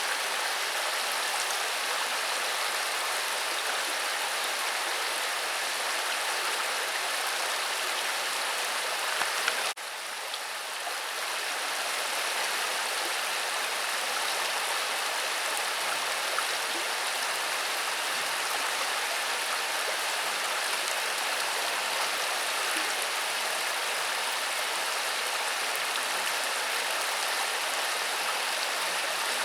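Steady hiss of running water, with a sudden brief drop in level about ten seconds in.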